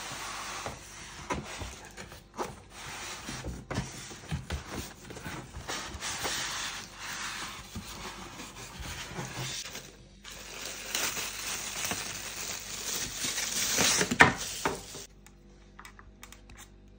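Unpacking noise: a cardboard box sliding off polystyrene foam packing and a plastic bag crinkling as a power cord is pulled free, with scattered clicks and scrapes. A sharp knock comes about fourteen seconds in, and the handling goes quiet near the end.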